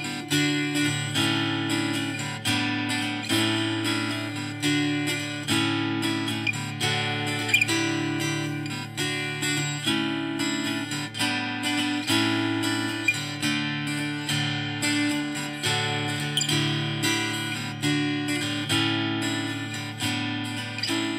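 Instrumental music of a strummed acoustic guitar playing chords in a steady rhythm.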